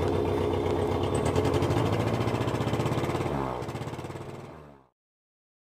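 An engine running with a fast, even beat, then slowing and dropping in pitch as it winds down, dying away about five seconds in.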